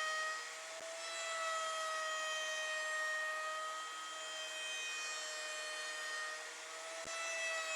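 CNC router spindle whining steadily as its bit carves MDF, with a cutting hiss; the pitch sags slightly and recovers a few times as the cut loads the spindle.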